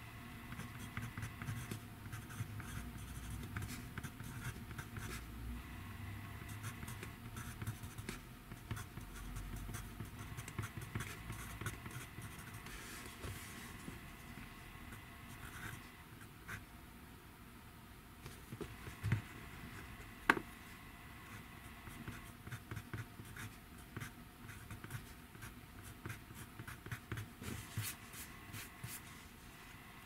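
Handwriting on workbook paper: a steady run of short, quick scratches from the writing tip, with two sharper knocks about a second apart a little past the middle.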